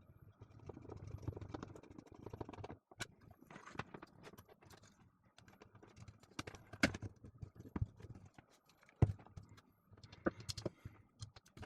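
Parts of a small electric coffee grinder being handled and fitted back together: irregular light clicks and taps, with a few sharper knocks in the second half.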